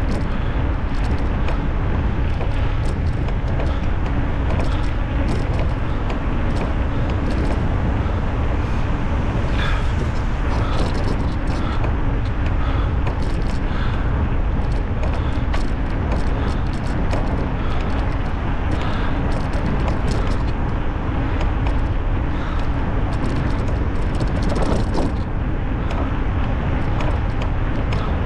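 Steady wind rush on the microphone and tyre and road rumble from an electric bicycle riding along a paved bike path, with scattered light clicks throughout.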